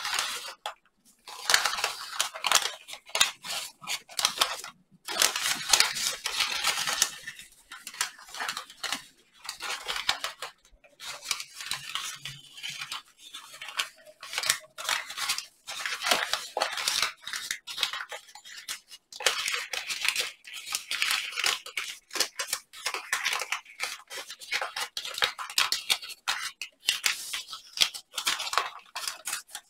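A large sheet of origami paper rustling and crinkling as hands fold, shape and press creases into it. The sound comes in irregular bursts with short pauses between them.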